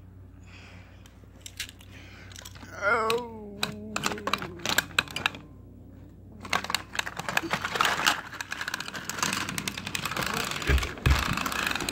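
Plastic toy trains clattering as they are handled, scattered clicks at first, then a dense run of clicks and rattles from about six seconds in. A short voice-like sound falling in pitch about three seconds in.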